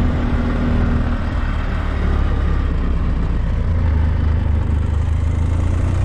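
BMW F800GS parallel-twin engine with its original stock exhaust, running steadily as the bike rides along. The low drone grows stronger about halfway through.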